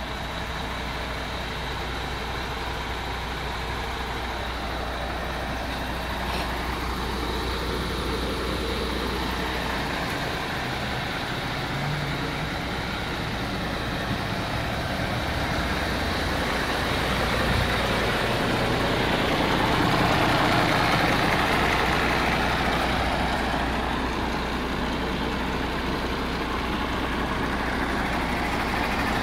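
MAN TGX 18.440 tractor unit's six-cylinder diesel engine idling steadily. It grows a little louder about two-thirds of the way through.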